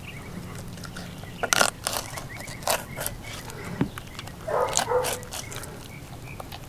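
Old Timer fillet knife with a 7.5-inch blade cutting along a flounder's backbone and rib bones to free the fillet for a boneless whole fish: scattered crunching clicks as the blade catches on the bones. A brief pitched call comes about four and a half seconds in.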